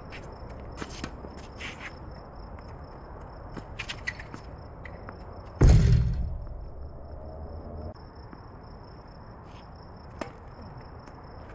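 Footsteps and shoe scuffs on a hard tennis court, many small clicks, with one loud thump about halfway through that dies away over half a second. A faint steady high tone runs underneath.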